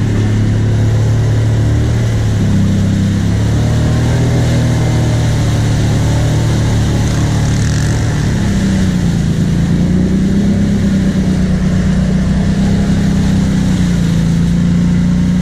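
ATV engine running steadily. Its speed steps up a little about two and a half seconds in and again about eight seconds in, then holds.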